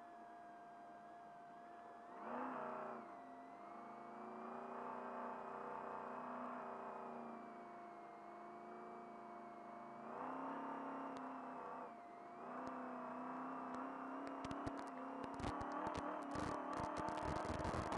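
Trophy truck engine heard from inside the cab, revving up and easing off as the truck accelerates, with the pitch rising in three surges. A steady thin tone runs underneath. From about three-quarters of the way in, a rapid clatter of knocks and rattles from the truck crossing rough ground joins the engine.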